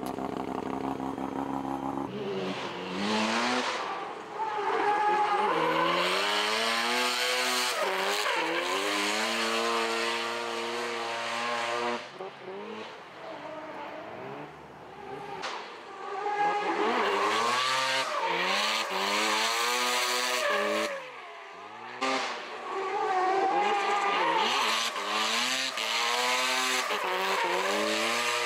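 Mazda FD RX-7 drift car at full throttle through drifts, with tyres squealing. The engine pitch climbs and falls again and again with throttle and gear changes. It drops off briefly about twelve seconds in and again about twenty-one seconds in.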